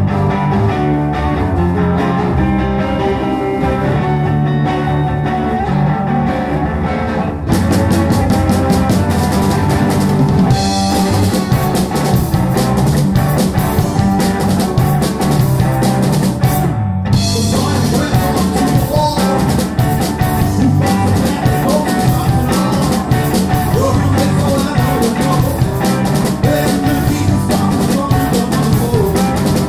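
Live rock band playing. An electric guitar plays alone at first, then the drum kit with cymbals comes in about a quarter of the way through. The band stops for an instant about halfway and carries straight on.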